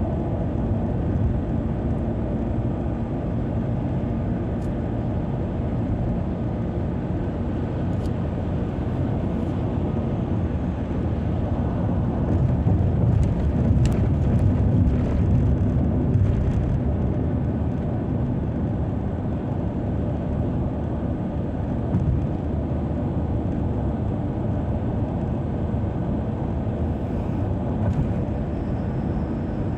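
Car driving on a motorway: steady engine and tyre rumble, louder for a few seconds about halfway through.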